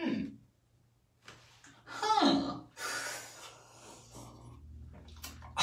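A man's wordless breathing sounds: a short breath at the start, a falling sigh about two seconds in, and a long breathy exhale just after it.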